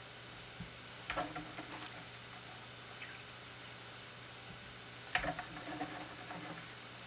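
Wet sea bass fillets being handled and patted dry with paper towels: two short bursts of handling and squishing sounds about four seconds apart, each dying away within a second.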